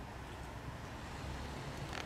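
Steady outdoor background noise with a low rumble and one faint click near the end; no animal calls.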